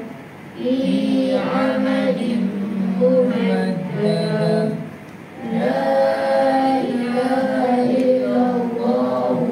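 A group of children reciting the Quran together in a melodic unison chant, in long held phrases with a short break for breath about five seconds in.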